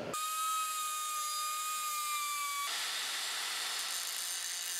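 Electric angle grinder with an abrasive cutoff wheel running on a steel bracket. It gives a steady whine that sags slightly in pitch, then turns rougher and hissier about two and a half seconds in.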